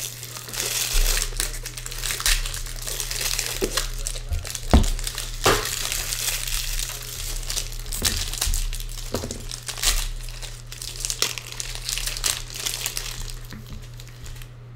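Foil trading-card pack wrappers crinkling and rustling as they are handled, with a couple of sharper snaps about five seconds in.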